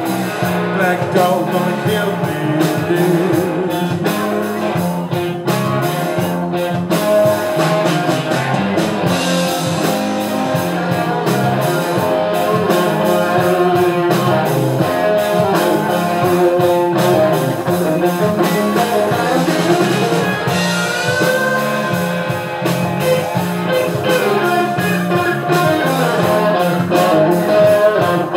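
Live blues-rock band playing an instrumental passage: electric guitars and an acoustic guitar over a drum kit, with a lead guitar bending notes.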